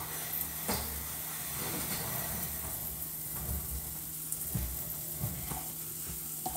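Pancake batter sizzling in a steady hiss as it is poured onto a hot nonstick griddle pan, with a few soft low knocks.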